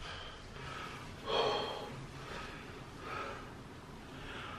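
A man breathing: a few soft breaths about a second apart, the clearest just over a second in.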